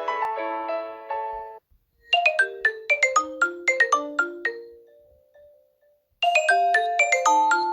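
Nokia mobile phone ringtones: short melodies of bright marimba-like notes played one after another. One tune ends about a second and a half in, a second runs for about three seconds and fades, and after a brief silence a third begins.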